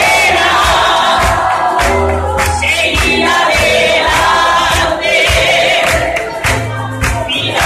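A congregation and the group at the front singing a worship song together over amplified music, with a bass line and a steady beat.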